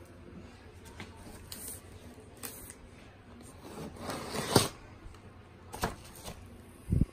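Bubble wrap and plastic packaging rustling and crinkling as they are handled, with a louder crinkling spell about four seconds in. A sharp knock follows, then a dull thump right at the end.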